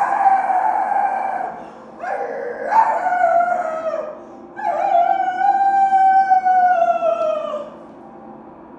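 A voice howling three long, drawn-out howls. Each slides down in pitch at its end, and the third is the longest, at about three seconds.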